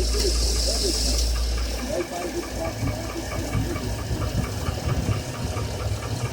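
2007 Chevrolet Avalanche V8 idling with a steady, rhythmic ticking knock, about four a second, which the owners trace to the number 5 cylinder and suspect is either knocking or piston slap. A hiss sounds over it for about the first second.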